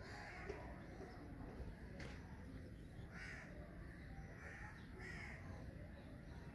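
Faint bird calls: about four short calls, one near the start and three between about three and five seconds in, over a steady low background rumble.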